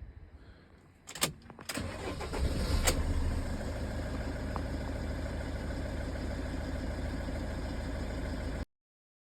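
Car engine starting after a couple of sharp clicks, catching about two seconds in and settling to a steady idle. This shows the crank-no-start cured by a new EGR valve.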